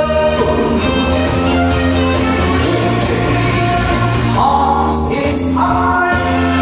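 A male voice singing a Korean trot song live into a microphone, over instrumental accompaniment, with long held notes.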